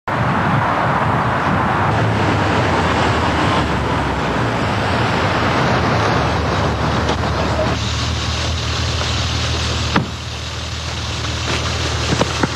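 A car's engine and road noise as it drives up, the noise easing off about eight seconds in, over a steady low hum; a single sharp knock about ten seconds in.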